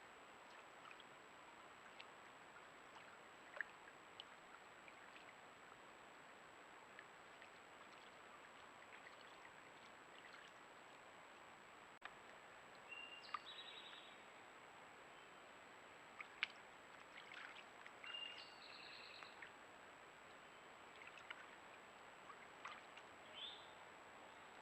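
Steady rush of a woodland stream running high after heavy rain, with scattered faint clicks. In the second half, a bird chirps a few times with short high calls.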